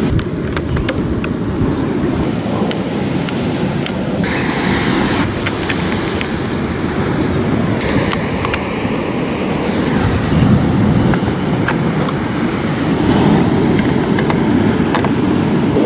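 Wind rumbling on the microphone over surf, a steady low noise, with scattered light clicks of plastic marble-run track pieces being handled and fitted together.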